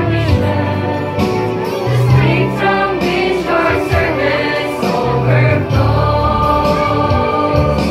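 A youth choir of young women and men singing a church song together.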